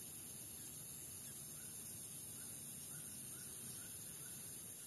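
Faint outdoor ambience: a bird repeats a short call note about seven times at an even pace over a steady high-pitched insect drone.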